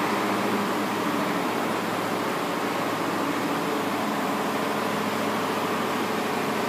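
Steady mechanical hum with a constant rushing noise, unchanging throughout, typical of factory machinery running.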